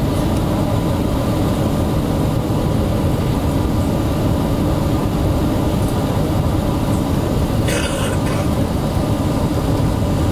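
Steady low rumble inside the cabin of an Airbus A380-800 on approach: engine and airflow noise heard from a window seat over the wing, with flaps extended. A short, sharper noise cuts through about eight seconds in.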